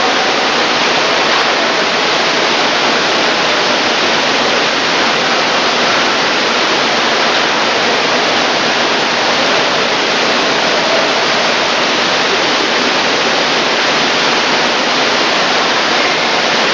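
Water slides' outlets gushing water into a splash pool: a loud, steady rush of pouring and splashing water.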